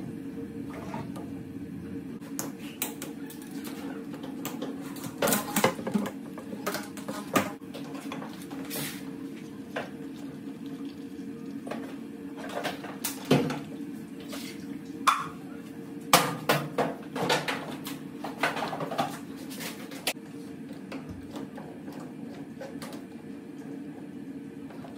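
Irregular metallic clinks and clatters, with a cluster of louder ones through the middle stretch, over a steady low hum.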